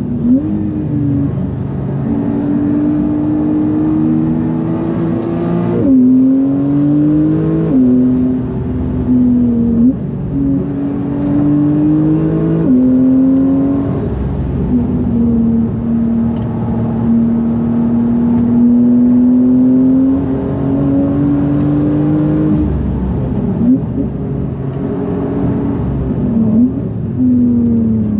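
Big-turbo Porsche 991.2 GTS's twin-turbo flat-six pulling hard, its pitch climbing steadily in each gear and dropping sharply at each gear change, several times over, with a few quick dips and blips in between.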